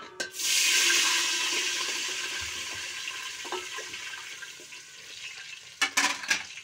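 Water poured into hot oil with crackling cumin seeds in a steel pot: a loud hiss and spatter under a steel plate held over the pot as a splash guard, which slowly dies down. A few sharp metal knocks near the end.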